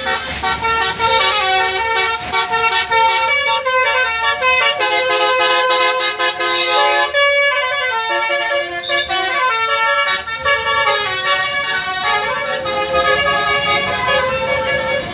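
A bus's 'telolet basuri' musical horn playing a tune: a quick run of horn notes stepping up and down in pitch, with a short pause about halfway through.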